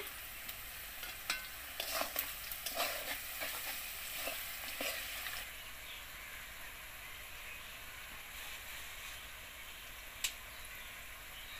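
Onions, chillies and spices sizzling in oil in a karai, with a metal spatula scraping and clinking against the pan in a burst of stirring during the first five seconds. After that the sizzle runs on steadily, with one sharp click near the end.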